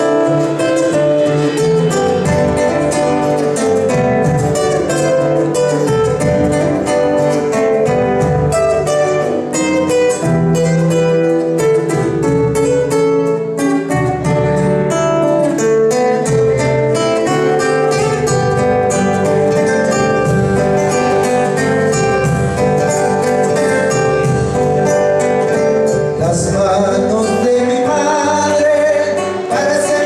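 Live Argentine folk music: acoustic guitars strumming and picking, with a male voice starting to sing near the end.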